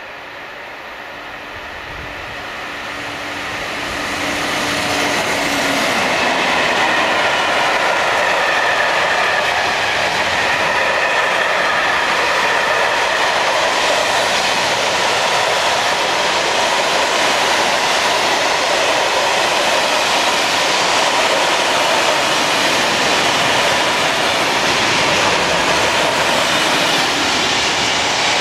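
Freight train hauled by an ÖBB Taurus electric locomotive approaching and passing close by. A steady low hum grows louder over the first few seconds as the locomotive nears. Then the loud, steady rolling noise of the hopper and tank wagons' wheels on the rails runs on as the long train goes past.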